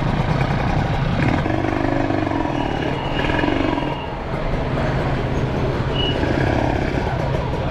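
Kawasaki Ninja 150 single-cylinder two-stroke motorcycle engine running at low speed in slow traffic and idling as the bike pulls in and stops, with street traffic around it.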